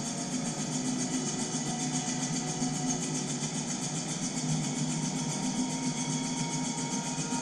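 Film soundtrack played on a television and picked up in the room: a steady hiss with low held tones beneath it.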